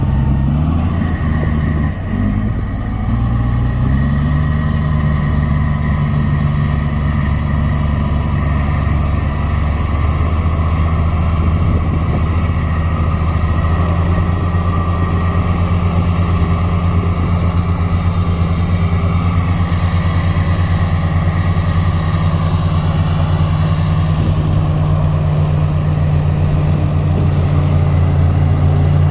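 Diesel engine of a heavy road-building machine running under steady load; its note sags for a moment early on and climbs back about four seconds in, then holds steady.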